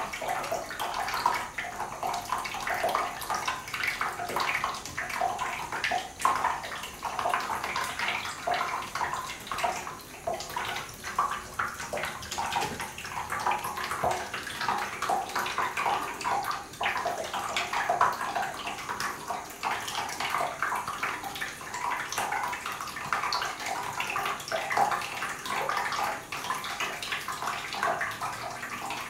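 A thin stream of water from a bathtub filler spout trickling and splashing steadily into a shallow pool of water in the tub.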